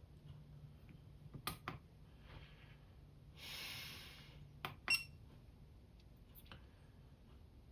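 Quiet workbench handling as a capacitor is put into a small component tester: two pairs of light clicks about three seconds apart, with a soft breath-like hiss between them over a faint low hum.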